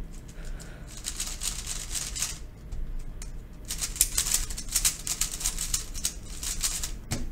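MoYu Meilong 3x3 speed cube being turned quickly by hand: a dense run of small plastic clicks and scratchy rustling, in two bursts with a short pause about two and a half seconds in. The cube is freshly lubed with a water-based lube, which quietens its turning.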